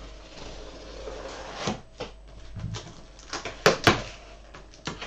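A cardboard box being cut open with a knife along its taped seam: a scraping slice through tape and cardboard, then several sharp knocks and rasps as the box is handled.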